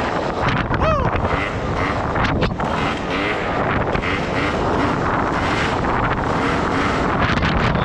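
Gilera Runner 180 scooter's two-stroke engine running while riding, with heavy wind noise on the microphone.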